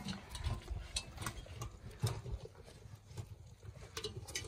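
Irregular light taps and clicks of Wirehaired Pointing Griffon puppies' feet on concrete and on stainless steel saucer feeding pans as they walk about and step into the pans.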